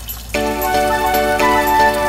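Background music: after a brief break, a lighter tune with held notes starts about a third of a second in.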